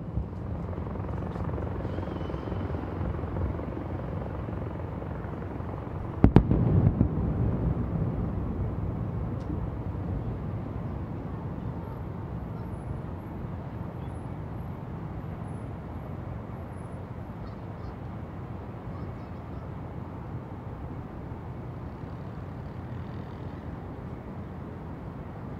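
A single sharp firework bang about six seconds in, its rumble dying away over a couple of seconds, over a steady low rumble of city ambience.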